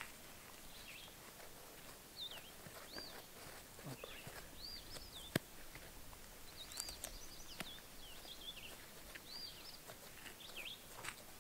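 Small birds chirping: short, high rising-and-falling notes repeated on and off over faint outdoor background noise, with a single sharp click about five seconds in.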